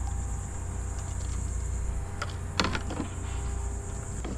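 A kayak's drive runs with a steady whine over a low rumble, as the boat moves along. There are a couple of light clicks a little past the middle.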